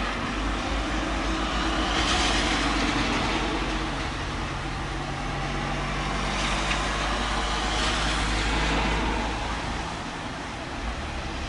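Thunderstorm: a long low rumble of thunder rolling over a steady hiss, swelling twice, about two seconds in and again near eight seconds.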